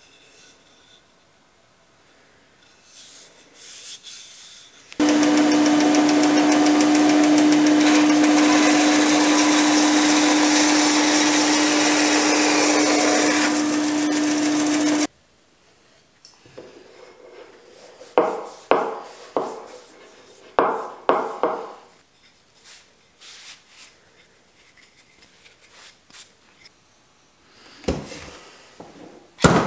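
A benchtop bandsaw runs and cuts through a round wooden handle for about ten seconds, with a steady hum under the hiss of the cut, then stops abruptly. After it come several short scraping strokes on wood, and a few knocks near the end.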